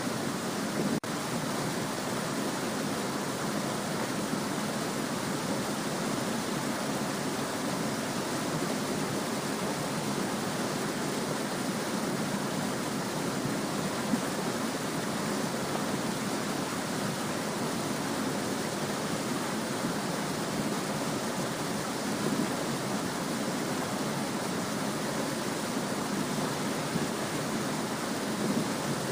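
Small stream babbling: a steady, continuous rush of flowing water, with a momentary drop in level about a second in.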